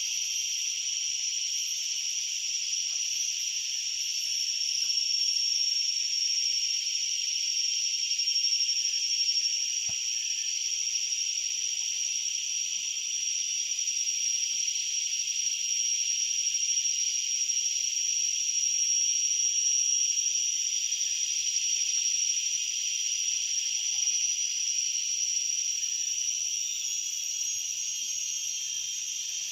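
A dense, steady chorus of insects: a continuous high-pitched shrill with one sharp steady tone on top, unbroken and unchanging.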